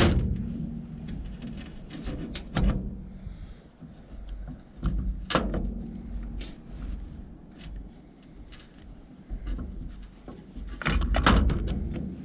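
Scattered knocks and clicks of metal starter-motor parts being handled and fitted together during reassembly, a few single knocks and then a cluster of them near the end.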